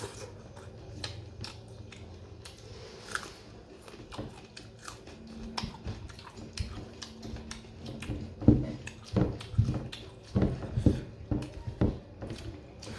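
Close chewing and wet mouth clicks from eating rice by hand, with many small clicks throughout. A run of louder knocks comes about eight to twelve seconds in.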